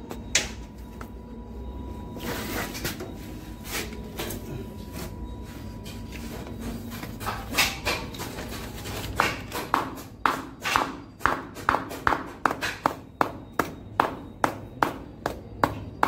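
Hammer striking the end of a heavy electrical cable laid on a wooden block: sharp blows in a steady rhythm of about two a second, starting about nine seconds in. Before that, only a few scattered knocks and handling sounds.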